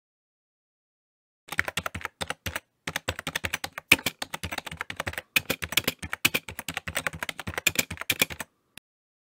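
Computer keyboard typing sound effect: rapid key clicks start about a second and a half in and run for about seven seconds, with one lone click near the end.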